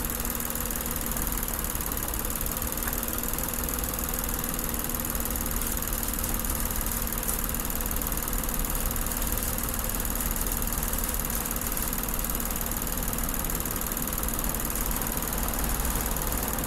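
Car engine idling steadily, heard close up from the open engine bay.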